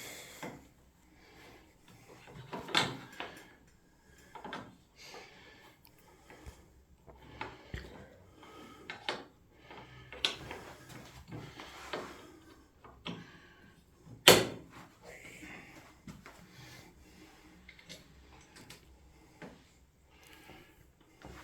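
Irregular knocks, clicks and rattles of a fridge's metal hinge bracket and plastic front fascia being handled and worked into place. There is one sharp knock about 14 seconds in and a smaller one about 3 seconds in.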